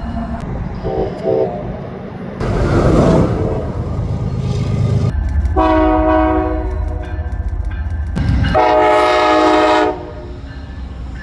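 Train horn sounding two blasts of about a second and a half each, several tones at once, over the low rumble of a passing train.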